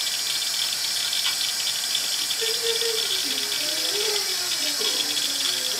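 Bathroom tap running steadily into the sink, a constant hiss.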